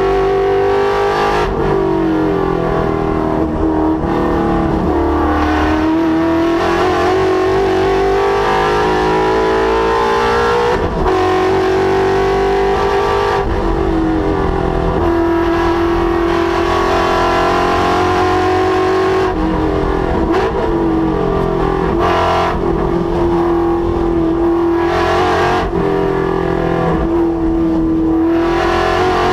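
Ford Mustang's Coyote 5.0 V8 at hard throttle on a race track, its pitch climbing through the revs and dropping at each gear change or lift, several times over.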